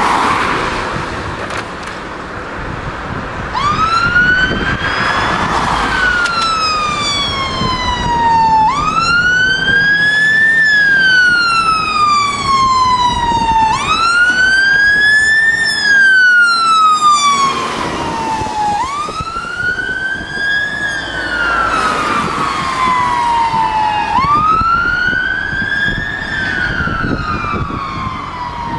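Scania fire engine's siren sounding the wail: a tone that rises quickly and falls away slowly, repeating about every five seconds, starting about three and a half seconds in. A passing car swishes by at the start, with road traffic noise underneath.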